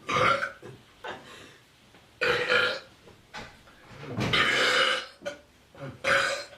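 A run of loud human burps, four main belches with smaller ones between, the longest drawn out for about a second past the middle.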